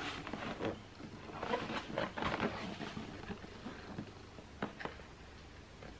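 Cardboard shoe box being handled and turned in the hands: faint rustling and scraping, with two light taps a little before the end.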